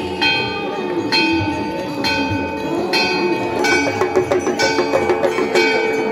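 Bells struck about once a second, each stroke ringing on. The set of pitches shifts a little over halfway through.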